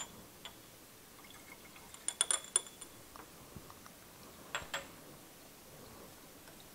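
Laboratory glassware clinking together as glass pieces are handled. There is a quick cluster of ringing clinks about two seconds in, then two lighter knocks about four and a half seconds in.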